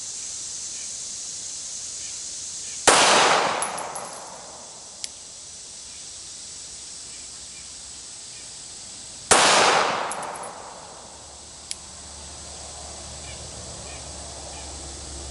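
Two single handgun shots about six seconds apart, each a sharp crack followed by about a second of echo rolling away. A faint click follows a couple of seconds after each shot.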